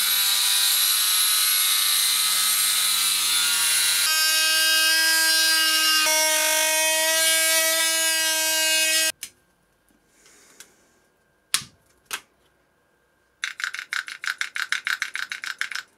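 Angle grinder cutting through the metal chuck housing of an old Hitachi impact drill. Its whine shifts pitch about four seconds in and cuts off after about nine seconds. Near the end, the opened chuck is twisted by hand and the toothed hammer mechanism of the impact drill gives a fast rattle of clicks.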